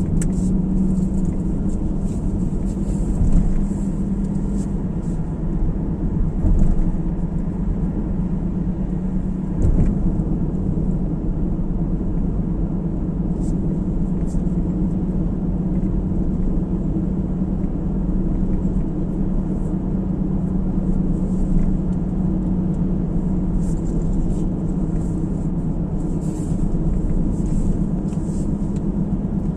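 A car driving along a road: a steady low rumble of engine and tyre noise with a hum that holds one pitch, and a few faint knocks in the first ten seconds.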